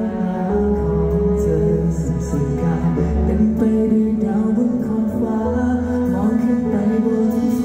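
A man sings a slow pop song into a microphone over instrumental accompaniment, played through a concert PA. A low bass line comes in about half a second in.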